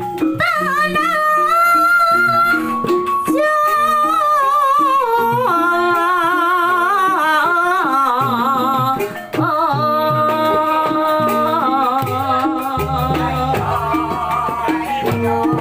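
Javanese gamelan ensemble playing a gending: bronze pot gongs and hanging gongs ring out steady pitched tones, with the kendang drum keeping time and a high voice singing a wavering melody over them. A deep low tone joins near the end.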